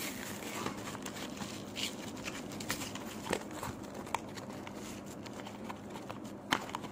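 Plastic-and-card blister pack of AAA batteries crinkling and clicking as it is handled and opened, with scattered small clicks and one sharper click near the end.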